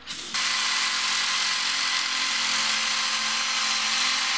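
Electric jigsaw sawing through a laminate flooring board. It starts abruptly a moment in and runs steadily.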